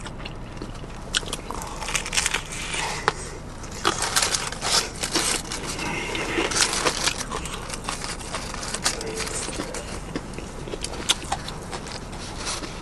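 Close-up mouth sounds of eating crispy fried chicken: repeated crunching bites and chewing with many sharp crackles, and mouth smacking.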